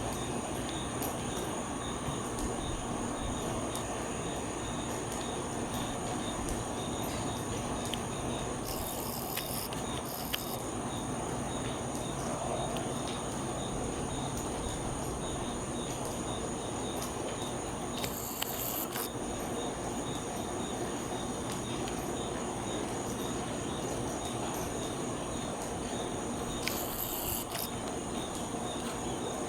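Insects chirring steadily over an even background hiss, with a few brief faint scratchy noises.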